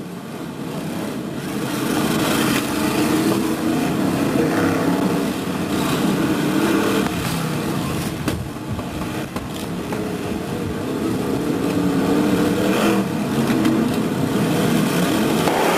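Several BriSCA F1 stock cars racing, their V8 engines running hard with a note that rises and falls as they lap, growing louder about two seconds in.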